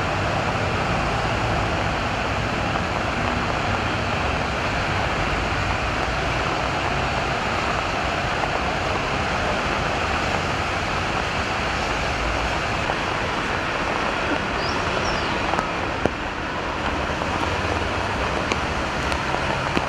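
Steady traffic on a rain-soaked multi-lane highway: a continuous hiss of tyres on the wet road mixed with the running of many car and bus engines, with a brief click about sixteen seconds in.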